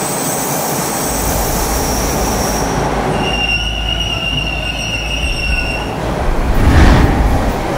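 Toronto subway train at a station platform: a steady low rumble with high-pitched steady tones over it, a high whine from about three seconds in that lasts two to three seconds, then a louder rush of noise near the end.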